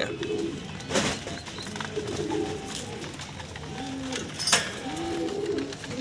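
Doves cooing, several short low coos spread through the moment, with two sharp knocks, one about a second in and one past the middle.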